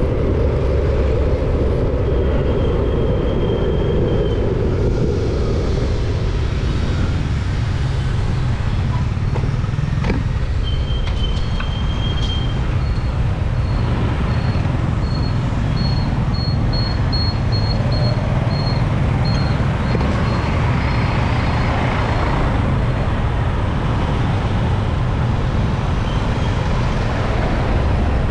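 Street traffic heard from a moving vehicle among motorbikes: a steady low rumble of engines and road noise. Midway there is a run of short high beeps at one pitch, about two a second.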